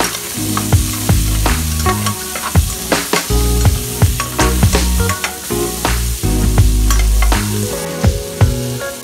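Shrimp, onion and green pepper sizzling in a frying pan as a spatula stirs them, under background music with a steady beat.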